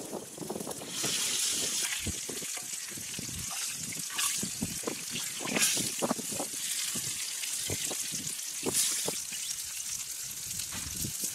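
Water trickling and splashing, with scattered light knocks and clinks and a few louder gushes.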